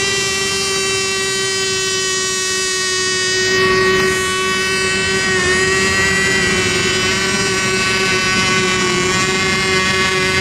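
Radio-controlled racing boat engines running at high revs, a steady high-pitched drone that swells briefly about four seconds in.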